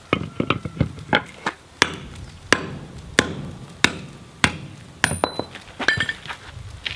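Hammers striking a steel drift being driven through the square hole of a hot striking anvil: a steady run of heavy blows about every two-thirds of a second with lighter taps between, and a couple of short metallic rings near the end.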